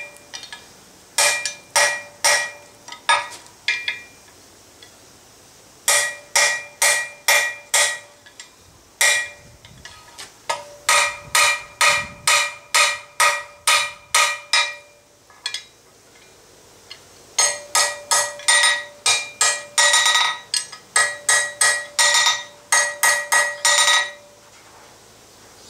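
Hand hammer striking hot steel on a steel anvil: rapid ringing blows, about two to three a second, in several runs with short pauses between. The blows are rounding the split, red-hot jaw of a bolt-jaw tong blank to fit the stock it will hold.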